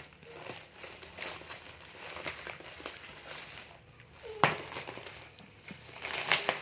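Packaging rustling and crinkling as small items are handled and taken out of a parcel, with one sharp knock about four and a half seconds in and more rustling near the end.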